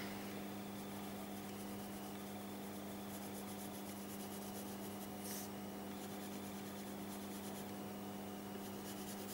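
Graphite pencil shading on drawing paper: soft, steady scratching strokes over a low, steady electrical hum, with one sharper stroke about five seconds in.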